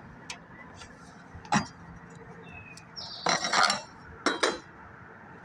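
Work noises of handling on the roof framing: a single sharp knock about a second and a half in, then two short bouts of clattering and rustling in the second half.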